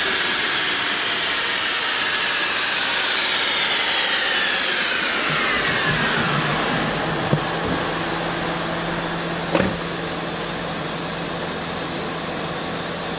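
A 2014 Mustang GT on a DynoJet chassis dyno winding down after a pull: a whine from the spinning drivetrain and rollers falls steadily in pitch over about six seconds, under a steady rush of air. A low steady hum follows, with two sharp clicks.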